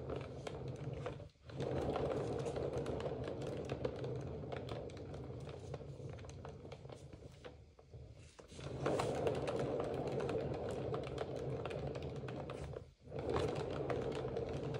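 Painting turntable spinning with a steady whirring rattle and low hum, started again and again with brief stops between spins. The longest spin slowly fades before stopping about 8 seconds in.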